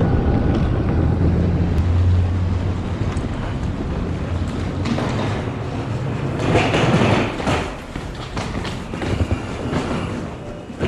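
Train running on the rails: a steady low rumble with rattling clatter. It swells for a moment about seven seconds in, then grows quieter.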